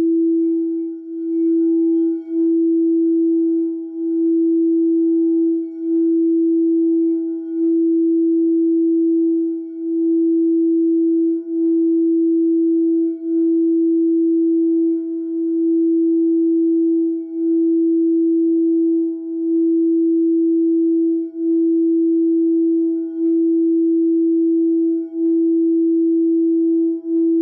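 Frosted quartz crystal singing bowl sung by circling a mallet around its rim, holding one sustained tone with faint higher overtones that dips and swells again about every two seconds.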